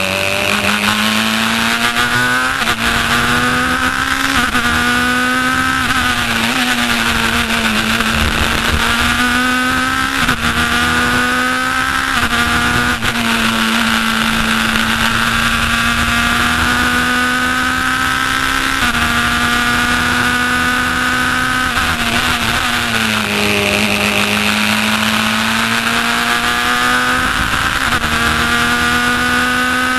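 Racing car engine heard from the open cockpit at full throttle, climbing in pitch through each gear and dropping back at every upshift. About three-quarters of the way through, the pitch falls away as the car slows for a corner, then climbs again through the gears.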